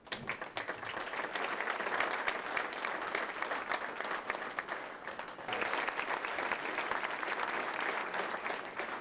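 Audience applauding, a dense patter of many hands clapping that swells again about five and a half seconds in and dies away near the end.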